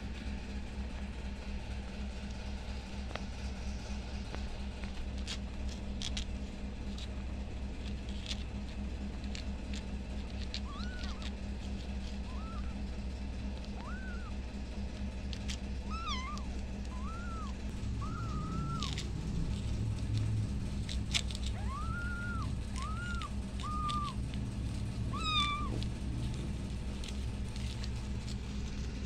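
Newborn kittens mewing: a dozen or so short, high, arching cries that begin about a third of the way in and come in small clusters. A steady low hum runs underneath.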